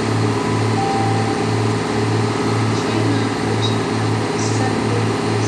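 Underfloor diesel engines of a Transport for Wales diesel multiple unit running beside the platform: a steady low hum that throbs about twice a second. A few faint, short, high chirps sound midway.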